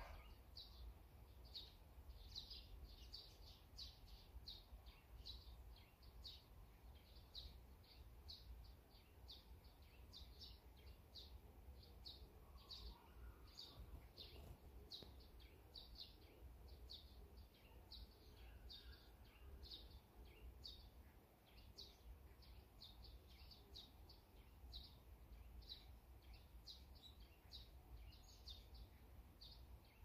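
Faint, rapid series of short high chirps from a small songbird, about three a second, repeating steadily over a low background rumble.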